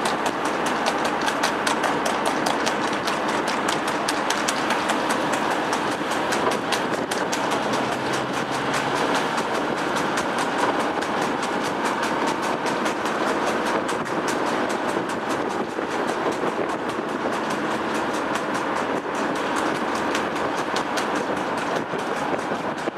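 Steady road and wind noise from a moving vehicle, with a fast, even clatter of clicks running through it.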